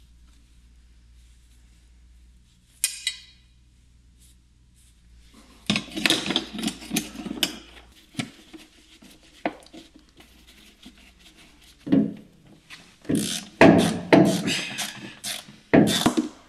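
Hand tools and metal parts clinking, scraping and rubbing while parts are refitted under a car's windscreen. There is a single click about three seconds in, a burst of clattering and rubbing around six seconds in, and more knocks and clatter from about twelve seconds on.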